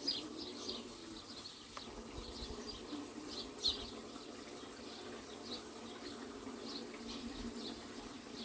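Faint, scattered high chirps of small birds over a low steady background hum, with a few light handling sounds.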